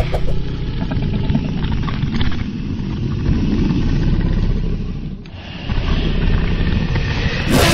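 Deep, rumbling growl of an animated Tyrannosaurus rex sound effect, in two long stretches with a brief drop about five seconds in.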